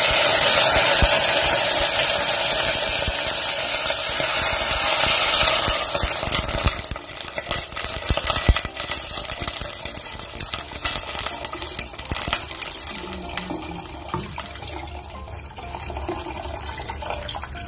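Water poured from an electric kettle into a stainless steel pot of vermicelli just browned in hot butter and oil: a loud hiss as the water hits the hot pot, easing about six seconds in into the splashing of a steady pour.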